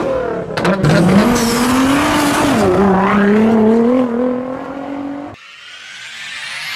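Car engine held at high revs, its pitch wavering up and down, with a few sharp exhaust cracks about half a second in; it cuts away at about five seconds and a rising whoosh sweeps up to the end.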